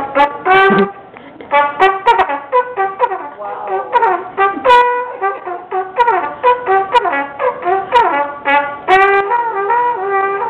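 Trumpet played solo: a melody of short tongued notes, several a second, some falling off in pitch at their ends, with a brief lull about a second in.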